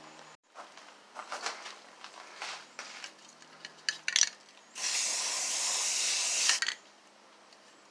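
A few metallic clinks and rattles, then a MIG welder with solid wire and shielding gas running a short bead, a steady hiss lasting about two seconds that stops abruptly.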